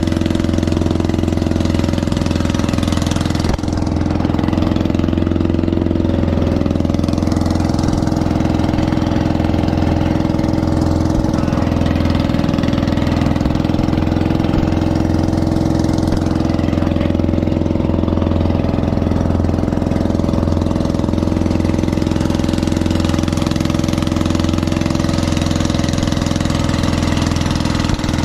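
Engine of a motorised outrigger boat (bangka) running steadily while the boat is under way: a loud, even drone that holds its pitch throughout.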